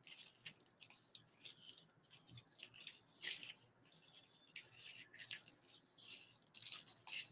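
Scissors snipping through a thin, soft plastic garbage bag: faint, scattered short snips and crinkles, louder about three seconds in and again near the end.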